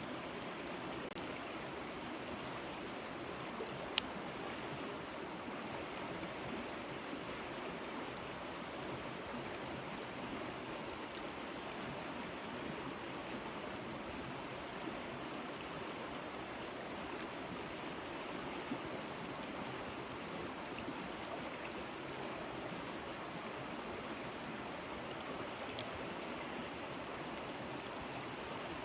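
Wood campfire burning with a steady rushing hiss and an occasional sharp pop of the wood, the loudest about four seconds in.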